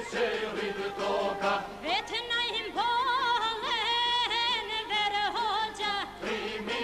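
Northern Albanian folk song from Mirdita, sung by a lead singer with a men's group. About two seconds in, one voice holds a long, wavering, ornamented note for several seconds before the singing moves on.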